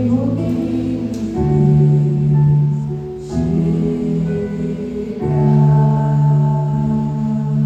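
Worship music from a church praise group: held chords that change about every two seconds over a steady low bass.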